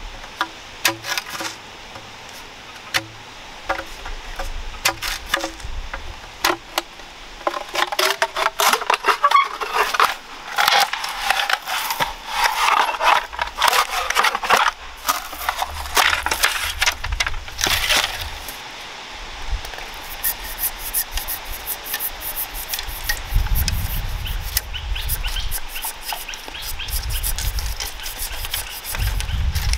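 A large knife cutting green bamboo: repeated chops and scrapes of the blade as a bamboo pole end is shaved to a point, then quicker slicing strokes as the blade splits and strips thin bamboo strips near the end.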